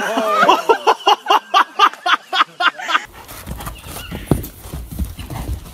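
A person laughing in quick, even bursts, about four a second, for about three seconds. Then a horse's hooves thud dully on soft dirt as it moves around a pen.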